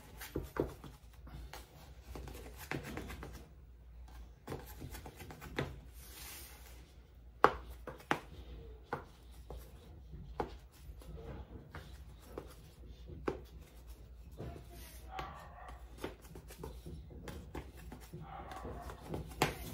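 Knife cutting diagonal slices through layered raw baklava dough in its tray: faint scraping with irregular sharp clicks and taps.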